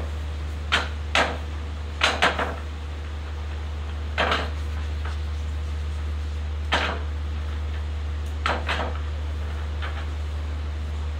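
Pool balls clacking against one another and the wooden triangle rack as they are gathered and racked: irregular sharp clicks, singly or in quick groups of two or three, every second or two, over a steady low hum.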